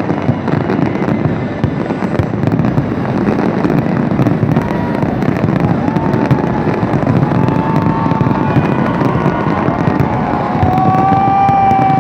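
Fireworks display going off continuously: a dense barrage of crackling and bangs, with a few high wavering tones joining in from about halfway.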